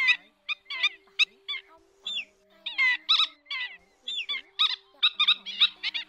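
Black-winged stilts calling: flurries of short, sharp, high yelping notes, several a second, some overlapping.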